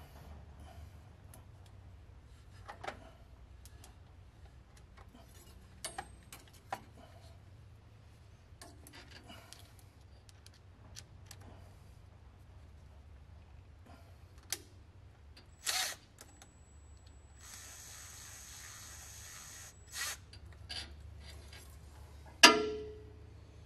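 Worm-drive hose clamp being fitted and tightened on a steel suspension link: scattered clicks and light metal taps, a cordless driver running for about two seconds in the latter half, then one sharp metal clank with a brief ring near the end.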